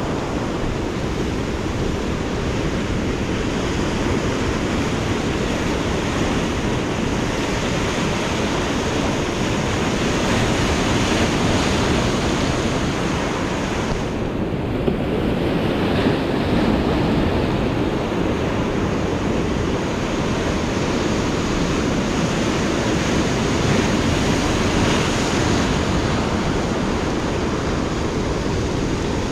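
Ocean surf breaking and washing over shoreline rocks in a steady, unbroken wash, with wind buffeting the microphone.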